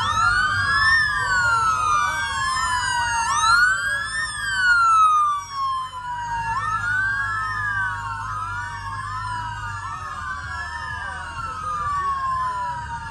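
Several police sirens wailing at once, out of step with each other, each rising quickly and falling more slowly every second or two.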